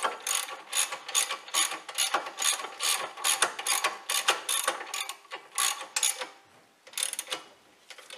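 Hand ratchet clicking as a socket winds in a front brake caliper bolt, about three to four clicks a second. The clicking breaks off about six seconds in and resumes briefly before stopping.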